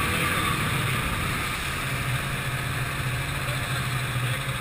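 Ski-Doo snowmobile engine running under way at a steady cruising speed, holding one even note over a constant rushing hiss.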